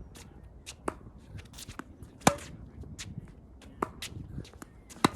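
Tennis ball struck back and forth by racquets in a rally: four sharp pops about a second and a half apart, the loudest near the middle, with lighter ticks between.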